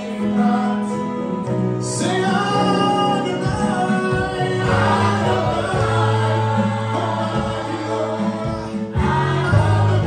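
Gospel worship music: a choir singing over accompaniment, with held low notes that change every second or two.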